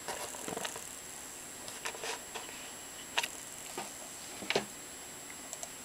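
Sparse clicks of a computer keyboard and mouse: a short cluster at the start, then single clicks about once a second, the loudest a close pair a little past halfway. Under them runs a faint steady high whine.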